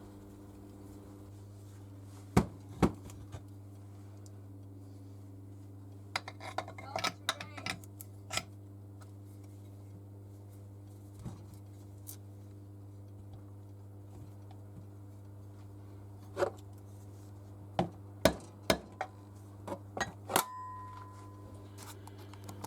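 Metal parts and tools being handled on a workbench: scattered sharp clinks and knocks, two early, a quick cluster a few seconds later, and several more near the end, over a steady low hum.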